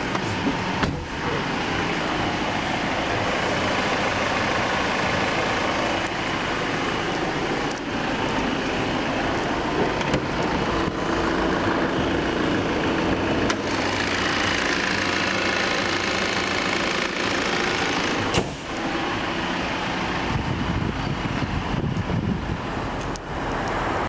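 Volvo XC60 running with steady engine and road noise, broken by a few sharp clicks.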